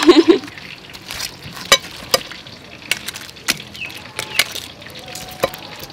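Metal tongs clicking against a plate and a steel tray as crispy fried chicken drumsticks are set down, a sharp click every second or so, over a faint sizzle from the freshly fried coating.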